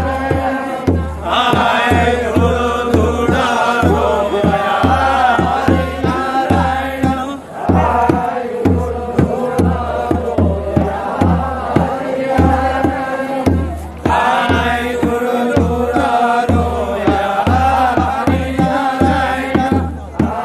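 A group of voices singing a Deuda folk song together, in phrases of about six seconds with short breaks between them, over a steady beat of a hand-played two-headed barrel drum at about three strokes a second.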